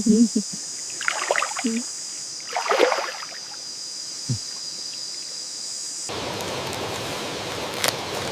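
A steady high-pitched hiss with two brief noisy bursts, then an abrupt cut about six seconds in to the steady rush of flowing water.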